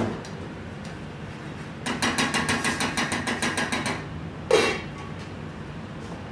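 A wooden spatula stirring tomato sauce in a stainless steel saucepan, knocking against the pan in a quick run of about nine strokes a second for two seconds. Then a stainless steel lid clanks down onto the pot once, the loudest sound.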